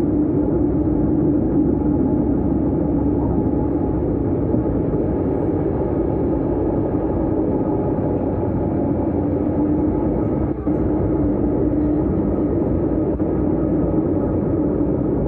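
Vienna S-Bahn train running on the rails, heard from on board: a steady rumble with a constant low hum.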